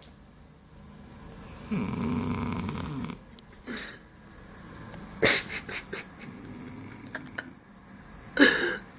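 A sleeping boy snoring: one long snore about two seconds in, lasting over a second, then a few short sharp sounds about five seconds in and a brief loud burst near the end.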